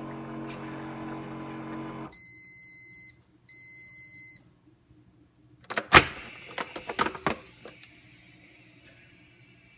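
Bonne O home carbonation machine: a steady hum, then two long electronic beeps signalling the end of the cycle. About six seconds in, a loud snap and a few clicks as the pressurised bottle is released, followed by a steady high hiss of escaping gas.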